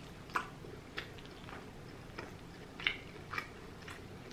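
A whole rotisserie chicken being torn apart by hand, mixed with quiet chewing: a string of short, soft, wet clicks and crackles, about one every half second.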